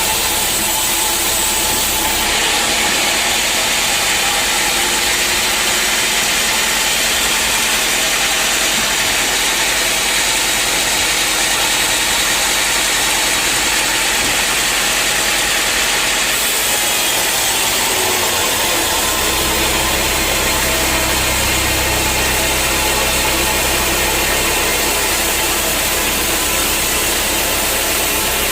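Sawmill machinery running: a loud, steady mechanical noise that turns brighter about two seconds in and dulls again after the middle, with a deep engine hum setting in about two-thirds of the way through.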